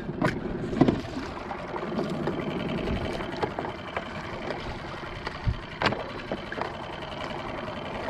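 Water sloshing against a fishing kayak's hull under a steady, fast mechanical whirr, with a few sharp knocks and clicks of fishing gear being handled on the deck.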